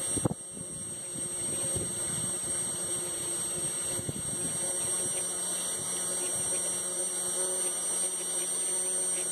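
Electric fuel pump running dry with no fuel flowing through it, a steady electric motor hum. A single knock comes just after the start.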